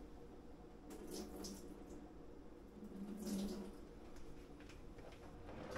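Faint water running and splashing at a kitchen sink, in short spells about a second in and again past three seconds in.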